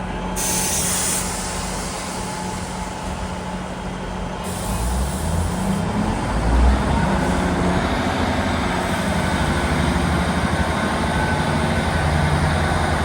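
Class 158 diesel multiple unit's underfloor diesel engines running, with a short hiss of air near the start. The engines grow louder about five to seven seconds in, then settle into a steady note with a high turbocharger whine over it.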